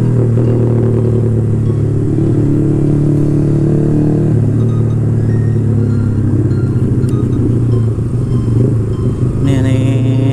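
A 150 cc single-cylinder sport motorcycle engine running steadily at low speed in slow traffic, heard from the rider's helmet-mounted camera.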